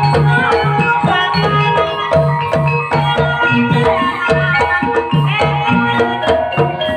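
Javanese ebeg accompaniment music: hand drums beat a steady, busy rhythm under an interlocking melody of ringing tuned percussion.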